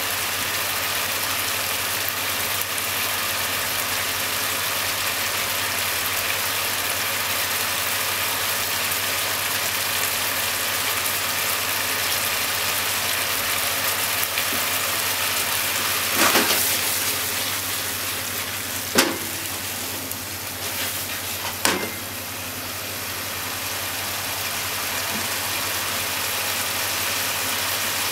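Beef and onion in sauce sizzling in a frying pan, a steady hiss. Three short knocks come partway through.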